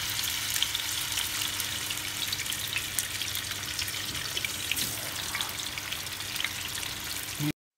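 Pomfret pieces sizzling as they shallow-fry in plenty of hot oil in a nonstick frying pan, a steady hiss with many small pops. The sound cuts off suddenly near the end.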